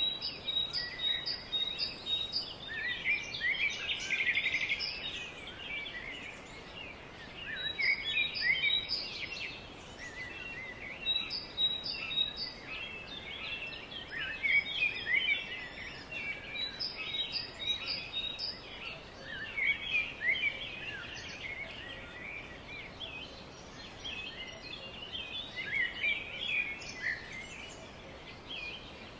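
Several songbirds singing together, a dense chorus of overlapping chirps and trills, with a run of repeated high notes coming back every few seconds.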